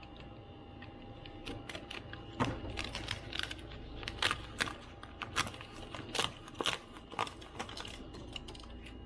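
Irregular small clicks and taps of a precision screwdriver working the many tiny screws that hold the keyboard in a MacBook Pro 13-inch A1278, a few clicks a second.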